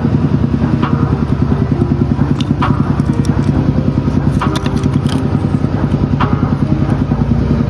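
An engine running steadily with a fast, even pulsing beat, with a few faint clicks over it.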